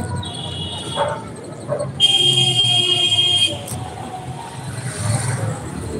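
Vehicle horn honking: a short, fainter toot at the start, then a louder steady honk of about one and a half seconds about two seconds in, over the low rumble of traffic.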